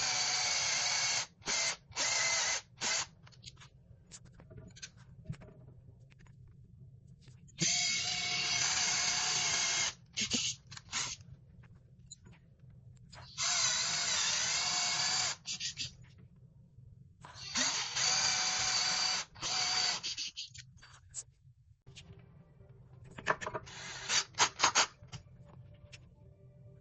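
Power drill running in repeated bursts of about two seconds, with short trigger blips between them and a quick run of pulses near the end, while an electrical box for a fire alarm pull station is mounted.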